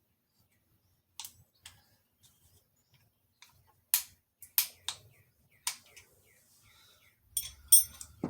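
Scattered sharp metallic clicks and taps from working a piston through a strap-type ring compressor into a cylinder bore, ending in two louder clinks that ring briefly.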